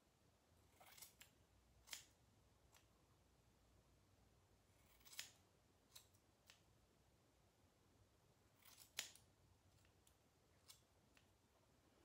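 Scissors snipping a dog's fur: faint, short snips, single or in small clusters, every second or two at an uneven pace, with the loudest about nine seconds in.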